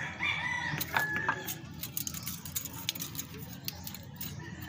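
Light metallic clicks and taps of a ring spanner and screwdriver on a rocker-arm valve adjuster screw and its lock nut during a valve clearance adjustment. A short animal call sounds in the background near the start.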